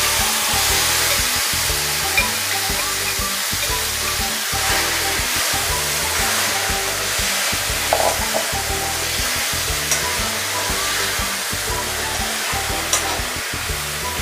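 Mashed roasted brinjal pulp sizzling as it drops into hot oil tempering in a metal kadai, the hiss starting suddenly and holding steady while a steel ladle stirs and scrapes it through, with a couple of light knocks.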